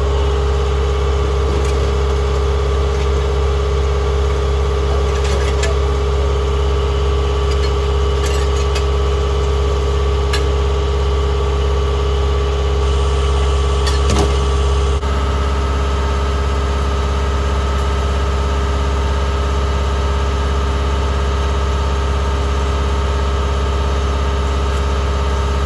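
Skid steer engine running steadily, with a few light knocks, and a sudden change in its tone about fifteen seconds in.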